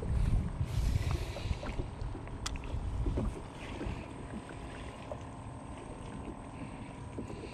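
Wind rumbling on the microphone for about the first three seconds, then easing off, over a faint steady hum. A short hiss comes about a second in, and a single sharp click near the middle.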